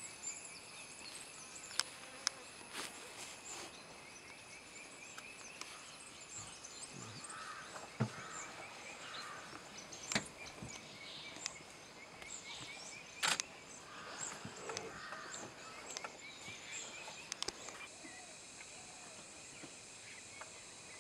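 Outdoor meadow ambience: a steady high insect drone with bird chirps here and there, broken by a few sharp clicks or snaps. The loudest of these come about 10 and 13 seconds in.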